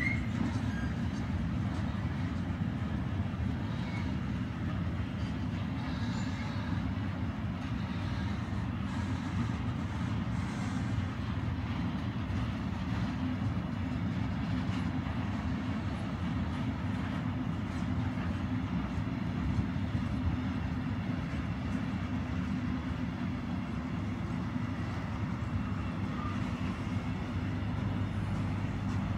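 Freight train running steadily, a constant low rumble with no clear change in pitch or strength.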